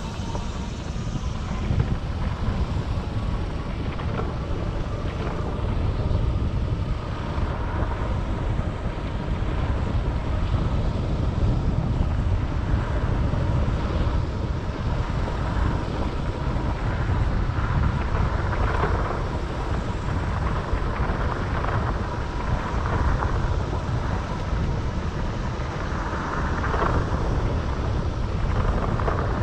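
Wind buffeting the microphone of a camera moving along a dirt trail: a steady low rumble, with a few brief hissy swells.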